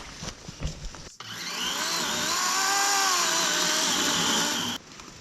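After about a second of light knocks and rustling, a DeWalt battery-powered chainsaw runs for about three and a half seconds, its whine rising and then falling in pitch, and cuts off suddenly.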